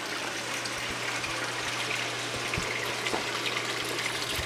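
Steady sound of running, splashing water from a backyard pool and spa, with a low steady hum underneath.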